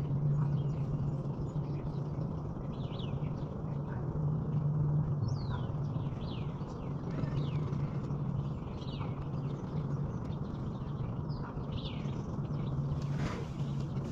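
Steady low electric hum from a kayak's bow-mounted trolling motor, swelling and easing every few seconds, with small birds chirping in short falling notes.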